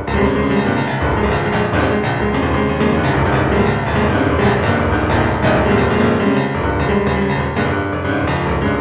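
Background music with piano, playing steadily.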